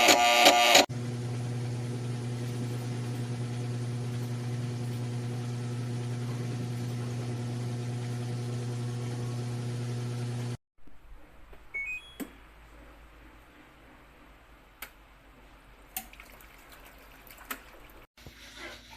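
LG washing machine drain pump motor running with a steady electric hum for about ten seconds, then cutting off abruptly. A few faint clicks and two or three short high beeps follow.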